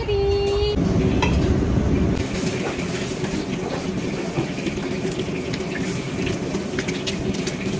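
Eggs frying in hot oil in a wok, a steady sizzle with fine crackling. It is louder for the first two seconds, then settles.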